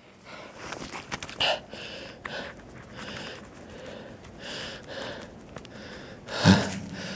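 A man breathing hard, with breaths in and out about once a second, and one loud voiced grunt about six and a half seconds in.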